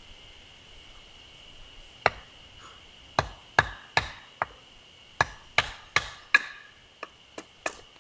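Firewood being split: about a dozen sharp wooden chopping knocks, the first about two seconds in, then quick runs of strikes a little under half a second apart.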